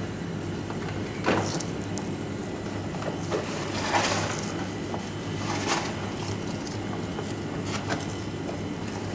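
A kitchen knife cutting and scraping along a whole fish on a plastic cutting board as the fillet is freed along the dorsal fin: four short scraping strokes, the longest about four seconds in, over a steady low hum.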